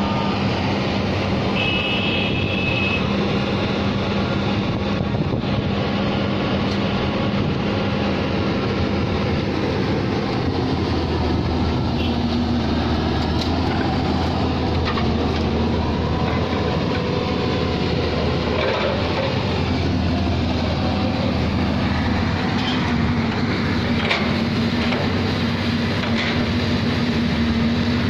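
Diesel engine of heavy construction machinery running steadily. A higher, stronger engine note takes over about ten seconds in, with a few faint metal knocks.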